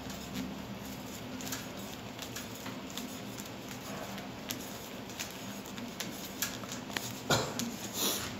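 Grey plastic adapter being screwed by hand onto a threaded fitting: scattered light clicks and rubbing of plastic on threads, over a steady low hum. A louder thump about seven seconds in.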